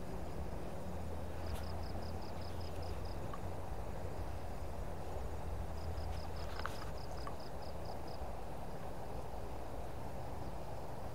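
Steady rush of a fast-flowing river, with an insect calling in two short runs of quick, even high pulses, each about two seconds long: one at about a second and a half in, one at about six seconds in.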